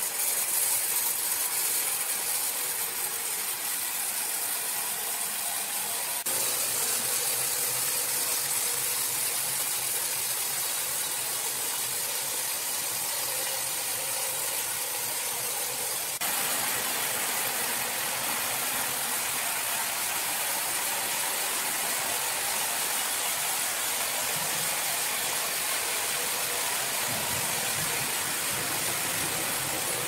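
Horizontal log band saw running, its blade cutting lengthwise through a dense ironwood block with a steady hiss. The level steps up abruptly twice, about six and sixteen seconds in.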